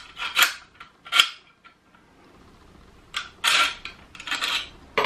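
Metal clicks and rattles of a guide fence being fitted to the steel base plate of a DeWalt Atomic cordless circular saw and worked with a hex key. Two sharp clicks come in the first second or so, then after a pause a few short scraping clatters.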